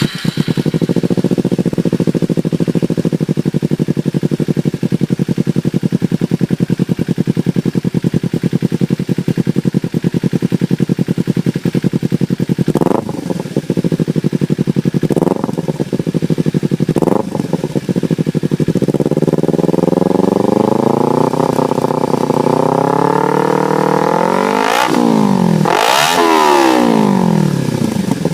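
Kawasaki Ninja 250R's parallel-twin engine through a Delkevic 9CF aftermarket exhaust, idling steadily. About halfway through it takes three quick throttle blips, is then held at higher revs, and near the end is revved hard twice before cutting off suddenly.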